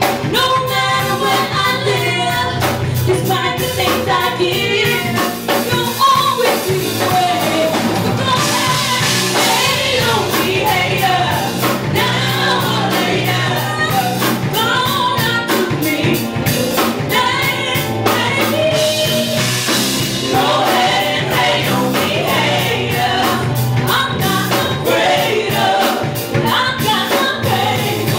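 A woman singing lead into a microphone over a live band with guitar and a drum kit, in a soul/R&B cover song.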